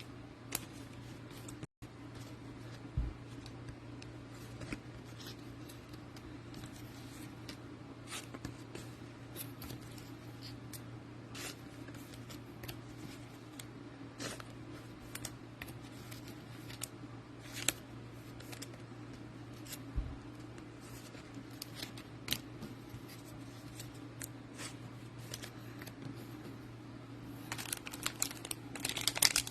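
Trading cards and packs being handled: scattered light clicks and rustles over a steady low hum. Near the end comes a denser run of louder crinkling and tearing as a card pack wrapper is torn open.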